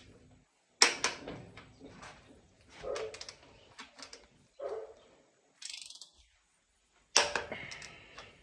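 A dog barking several times, a second or two apart.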